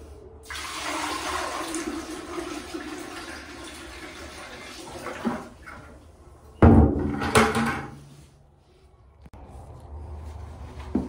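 Water rushing into a backed-up toilet bowl for about five seconds, then a loud clunk about six and a half seconds in.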